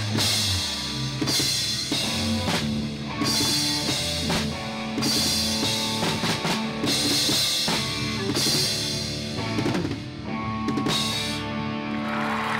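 A live rock band playing without vocals: a drum kit with cymbal crashes about every two seconds over electric bass and guitar.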